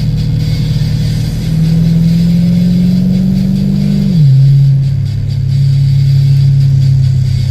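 Vehicle engine under way, its revs climbing steadily for a couple of seconds, then dropping sharply about four seconds in and running steady at lower revs.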